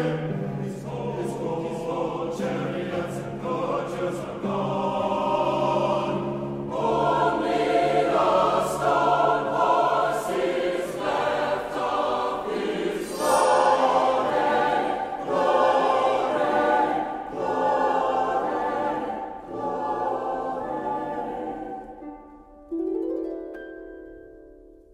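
Mixed choir singing sustained chords, accompanied by harp and cello, swelling to loud repeated chords on "glory" with a shimmering bell tree sweep about halfway through. Near the end the choir fades out and a rising harp figure rings on its own.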